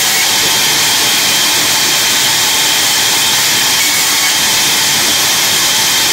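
Large wood-cutting bandsaw running with a loud, steady hiss as its blade cuts through short log sections.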